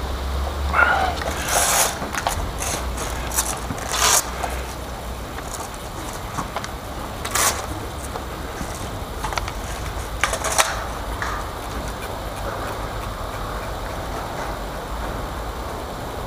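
Wind rumbling on the microphone, with a handful of sharp, scattered cracks of airsoft guns firing during the game.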